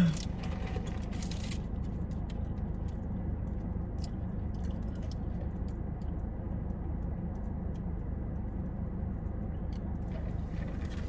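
Steady low hum of a car's running engine and cabin fan heard from inside the car, with a few faint clicks of chewing.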